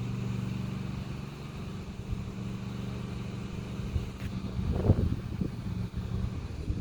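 Engine running steadily with a low hum that stops shortly before the end, with a brief short sound about five seconds in.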